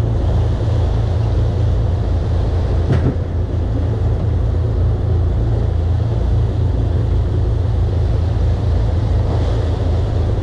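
Charter fishing boat's engine running steadily, a constant low drone with hull and water noise, with one brief knock about three seconds in.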